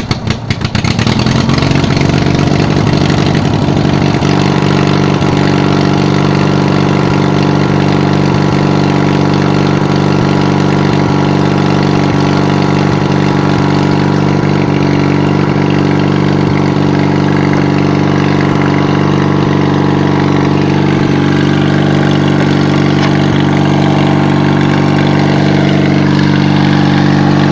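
Montgomery Ward Signature 2000 riding mower engine, jump-started, firing up with a ragged stutter in the first second, then running steadily.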